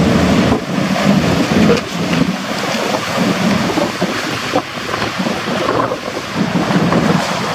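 Jet ski engines running hard over boat wakes, with the rush and splash of water and wind buffeting the microphone.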